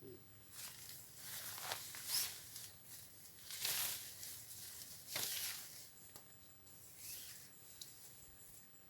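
Irregular rustling and scuffing, a string of short dry noises spaced about half a second to a second and a half apart, the strongest a couple of seconds in and again near the middle.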